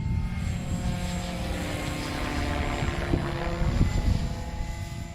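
Electric RC helicopter (SAB Goblin 580) in flight: a steady whine from its motor and rotors, growing louder through the middle as it comes closer. Gusty wind rumbles on the microphone throughout.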